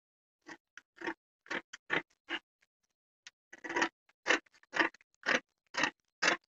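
Scissors cutting through a folded sheet of brown pattern paper, a run of crisp snips about two a second with a short pause near the middle.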